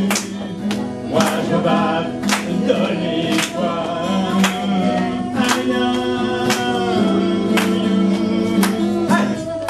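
A group of voices singing a song together over backing music with a steady beat.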